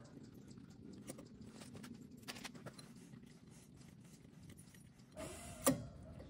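Steel flywheel puller plate and its bolts being handled and fitted against an engine flywheel: faint rattles and small clicks, with one sharp metal clank near the end.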